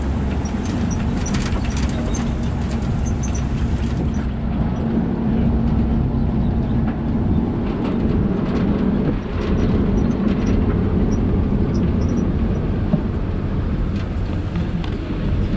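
Safari truck running along the ride's road: a steady low engine rumble with scattered rattles and light knocks from the vehicle.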